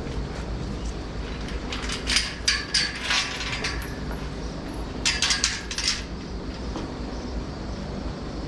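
Two short bursts of clattering and clinking, one about two seconds in and another about five seconds in, over a steady low hum.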